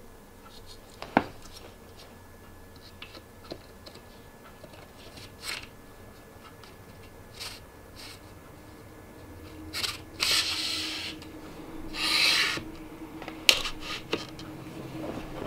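Aluminium track being slid and pressed onto the rail of a pleated RV blind: scattered clicks and taps of metal and plastic, with two longer scraping rubs about ten and twelve seconds in.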